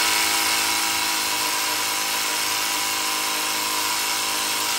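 Battery-powered Ryobi drill running steadily, a constant motor whine with no rattle, held for several seconds at an even pitch.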